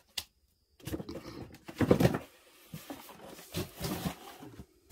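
Dry twigs and brushwood crackling and snapping in a clay-walled agungi firebox as a freshly lit fire catches: irregular sharp crackles, busiest about two seconds in.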